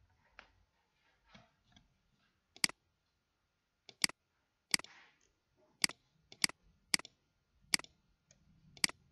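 Sharp clicks from a computer mouse and keyboard used to fill in a web form: about eight single clicks at uneven intervals, starting near three seconds in.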